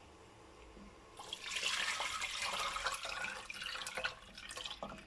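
Palm nut (banga) extract being poured from a bowl into a cooking pot: a steady splashing pour starts about a second in and thins out near the end.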